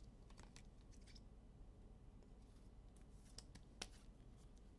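Near silence with faint clicks and rustles of trading cards and plastic card sleeves being handled, and one sharper click about four seconds in.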